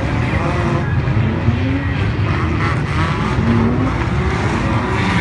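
Engines of a pack of banger-racing cars running hard together in a loud, steady rumble, with several engine notes rising and falling as the drivers rev up and back off.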